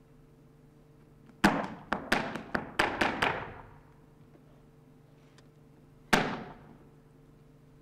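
Sharp percussive strikes echoing in a hall: a quick run of about seven, then a single strike a few seconds later.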